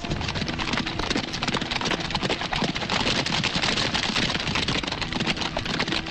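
Many horses galloping together: a dense, continuous clatter of hoofbeats as a body of cavalry rides out.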